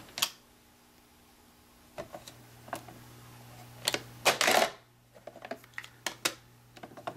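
Mechanical clicks of the 1968 Norelco 2500 cassette deck's keys: a sharp click as the music stops, a few lighter clicks, then a louder clatter about four seconds in as the cassette is ejected and pulled out of its well, followed by small clicks of the cassette being handled. A faint low hum runs underneath.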